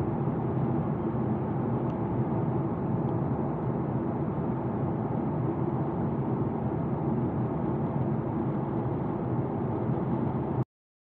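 Steady cabin drone of a jet airliner in cruise, engine and airflow noise heard from inside the cabin. It cuts off suddenly near the end.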